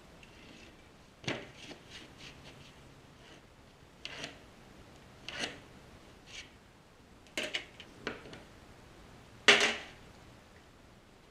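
Cardboard and a speed square being handled on a workbench: a string of short knocks, slides and rubs as pieces are shifted and set down, the loudest knock about nine and a half seconds in.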